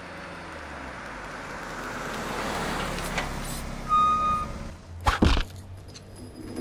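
Cartoon sound effects of a small van driving up and stopping: engine and road noise swell and fade, a short single-pitched beep sounds about four seconds in, then two sharp bangs follow in quick succession, with a small knock near the end.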